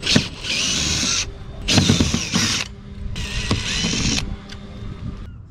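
Makita 18V cordless drill backing screws out of a stainless stanchion base, running in three short high-pitched bursts with pauses between.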